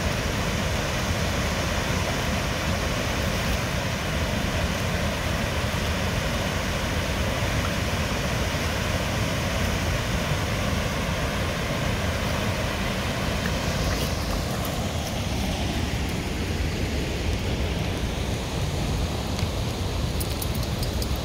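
Rushing river rapids with a small waterfall behind: a steady, even roar of moving water. About two-thirds of the way through the hiss of the water grows duller and softer.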